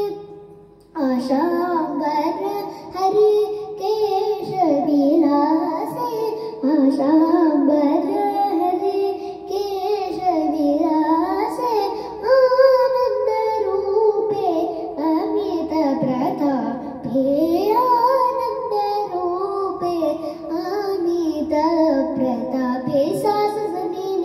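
A girl singing a middle-tempo Carnatic kriti in raga Shuddha Dhanyasi, Adi tala, solo voice with many gliding, ornamented phrases. A held note breaks off at the start, and she resumes singing about a second in.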